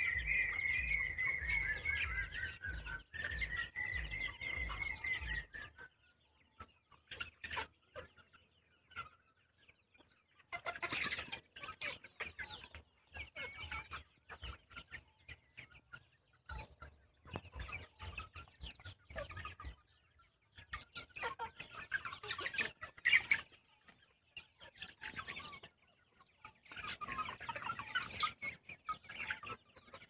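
A flock of Sonali chickens clucking as they feed, in scattered short bursts. For the first five seconds or so a long high call, held in two stretches, sounds over a low rhythmic pulsing, and then it goes quiet for a few seconds before the clucking picks up.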